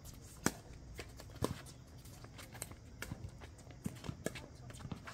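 Pickleball rally: paddles hitting the plastic ball with sharp pocks, the loudest about half a second and a second and a half in, then lighter hits, with shuffling footsteps on the hard court.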